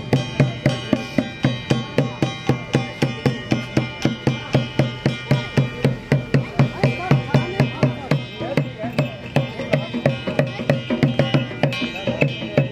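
Traditional drum-and-wind-instrument music: drums beaten in a steady rhythm of about three strikes a second, under a sustained, wavering reed-like melody.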